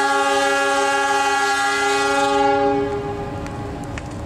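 Air horn of a CC 206 diesel-electric locomotive giving one long, steady blast as the train departs. The blast ends about three seconds in, leaving the low rumble of the moving train.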